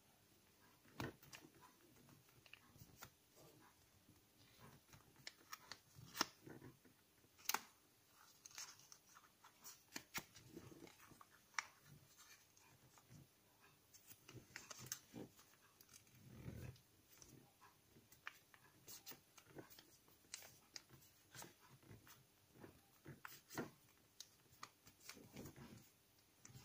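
Faint sound of a sheet of paper being folded by hand: soft rustling with scattered sharp crackles as creases are pressed and flaps are turned, and a few longer, softer rustles.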